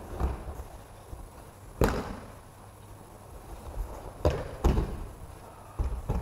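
Bodies hitting gym mats as partners are thrown in aikido: about five sharp thuds and slaps of breakfalls at uneven intervals, the loudest about two seconds in and near the five-second mark, each dying away briefly in the hall.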